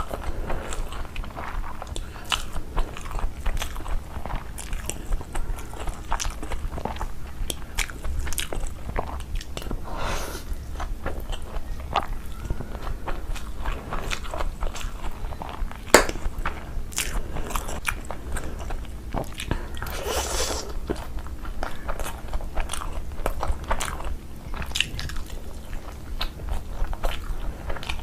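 Close-miked eating: steady chewing with frequent crisp crunches and mouth clicks.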